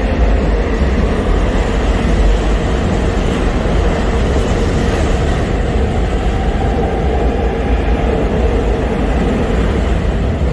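Subway train running past the platform: a loud, steady rumble of wheels on rails, with a faint rising whine in the middle.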